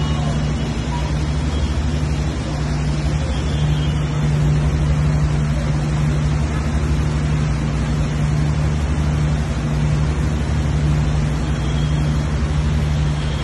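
Steady noise of a heavy monsoon downpour, with a constant low drone underneath.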